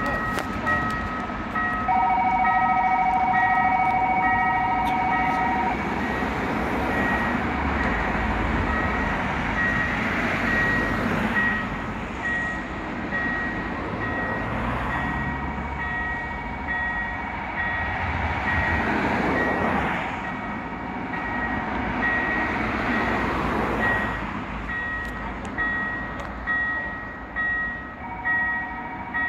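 Railway level-crossing warning bell sounding a rapidly repeating electronic tone, warning of an approaching train, with a second lower tone joining at times. Road vehicles pass a few times.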